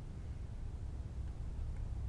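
Low, steady background rumble with nothing distinct over it.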